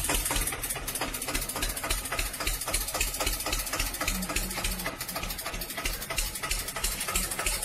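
Farm tractor's diesel engine running steadily with a fast, even knock.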